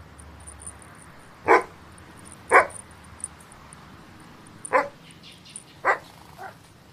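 Four short dog-like barks in two pairs, each pair about a second apart, with a fainter fifth near the end. A faint high twinkling runs underneath.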